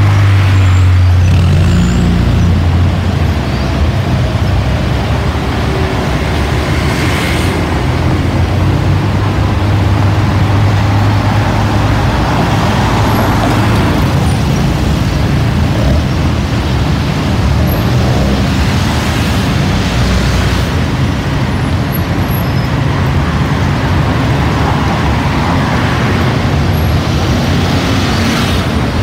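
Steady, broad jet roar of an Airbus A320-216's CFM56 engines as the airliner passes at a distance.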